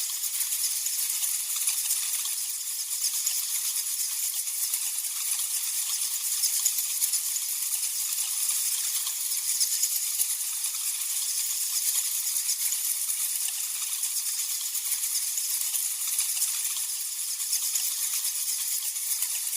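Many bats squeaking and chittering together in a steady, high-pitched chatter of tiny clicks and chirps.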